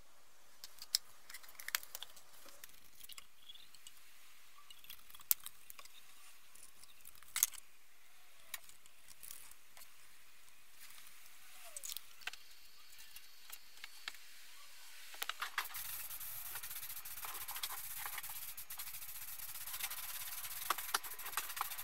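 Scattered small clicks and rubbing of gloved hands handling plastic paint mixing cups and a cloth. About two-thirds of the way in, a steady hiss starts, with more clicks over it.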